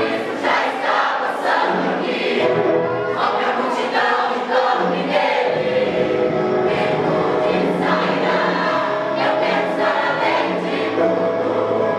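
A vocal group singing a gospel song in harmony with band accompaniment.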